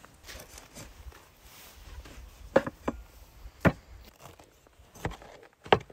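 Meat cleaver chopping through a leg of lamb on a wooden cutting board: a series of sharp chops, three in quick succession about two and a half seconds in, then single strikes, the loudest near the end.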